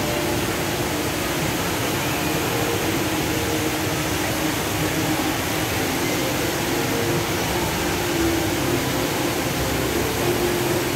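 Steady rushing roar of a large indoor waterfall, the Rain Vortex at Jewel Changi Airport, its water plunging down a central funnel into the basin below.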